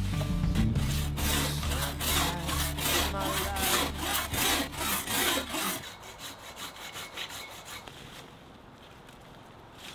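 Hand saw cutting through a branch with rhythmic back-and-forth strokes, over the tail of background music that ends about six seconds in; fainter strokes follow, then quiet.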